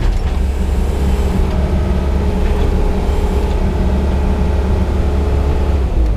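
Yanmar crawler excavator's diesel engine and hydraulics working under load while digging: a steady drone with a tone that slides down in pitch near the end.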